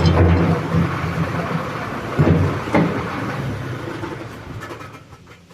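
Excavator's diesel engine running while it works the bucket on a homemade quick coupler, with a few metallic clunks. The sound dies away near the end.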